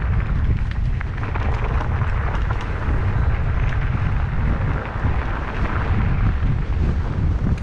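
Wind buffeting an action camera's microphone on a moving mountain bike, a steady heavy rumble, with the tyres crunching and the bike rattling over a rough track.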